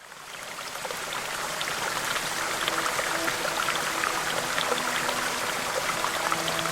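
Running water with many small drips and splashes, fading in at the start. A few faint held musical tones come in partway through.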